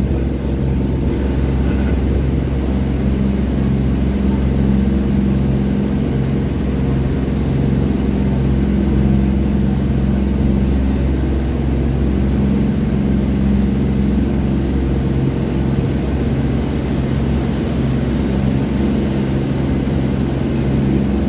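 A boat's engine running steadily under way, a constant low droning hum, with the rush of water along the hull, heard on board.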